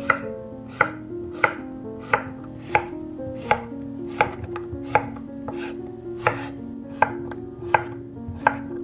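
Chef's knife chopping zucchini on a bamboo cutting board: sharp, evenly spaced knocks of the blade through the flesh onto the wood, about thirteen of them at a little faster than one a second. Soft background music plays underneath.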